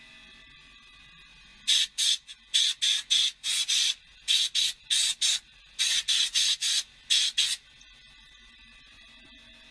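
Compressed-air blow gun fired in a series of short, sharp hissing bursts, in quick groups over about six seconds, blowing dirt off the engine around the diesel injectors.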